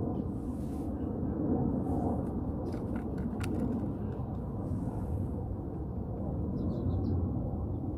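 Outdoor background sound: a steady low rumble, with a few faint high bird chirps near the end.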